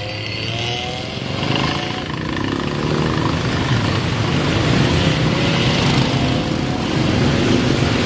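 Motor traffic of cars, buses and motorcycles fording a flooded road: engines running under a steady rushing noise, with engine pitch rising and falling in the first couple of seconds.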